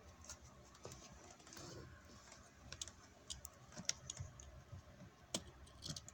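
Faint, irregular light clicks and taps of close handling as a hand reaches in among objects, with two sharper clicks about four and five and a half seconds in and a quick cluster near the end.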